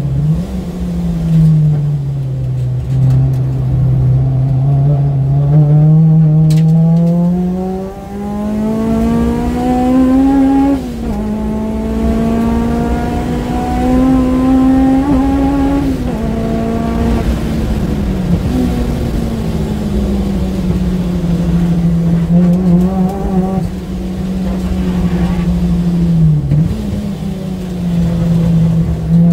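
Honda Civic Type R engine heard from inside the cabin at speed on track, over steady road and tyre noise. The engine note climbs under acceleration, drops sharply at an upshift about eleven seconds in and climbs again. It then falls away under braking, with quick dips at the downshifts.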